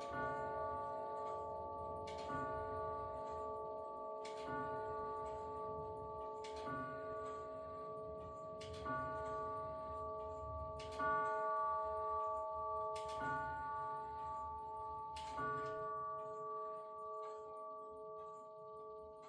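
Grandfather clock striking the hour: a single stroke about every two seconds, each one ringing on over the last, and the ringing dies away after the final stroke near the end.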